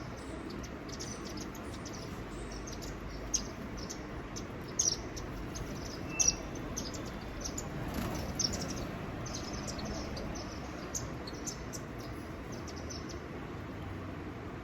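Small birds chirping, many short high notes scattered through, a few louder ones a few seconds in, over a steady low background noise.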